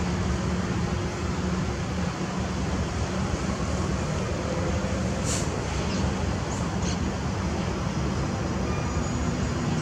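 State Railway of Thailand diesel locomotive's engine running with a steady low hum. A few brief high squeaks come near the middle.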